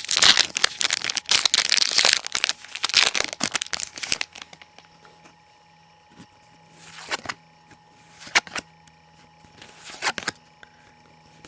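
Yu-Gi-Oh booster pack's foil wrapper being torn open and crinkled for about the first four seconds, then a few brief soft rustles of the cards being handled.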